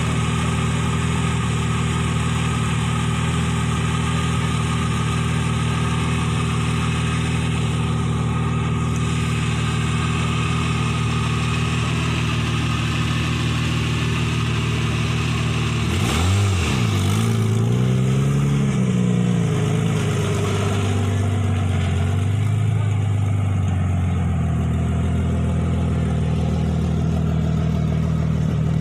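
Off-road racing 4x4's engine idling steadily, then revved in several blips about halfway through, the pitch rising and falling before it settles back to idle.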